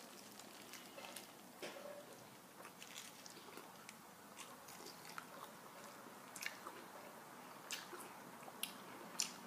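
A person biting into and chewing a mouthful of soft tortilla wrap filled with lettuce. The chewing is faint, with scattered small mouth clicks.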